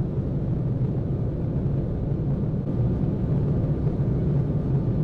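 Jet airliner taking off and climbing, heard from inside the cabin: a steady low rumble of engines and airflow.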